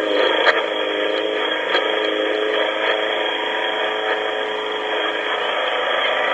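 Lawn mower engine running steadily, heard through a telephone voicemail recording, so it sounds thin and muffled. There are a couple of faint clicks in the first two seconds.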